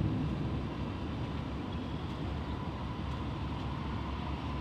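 Steady low road rumble inside a moving car.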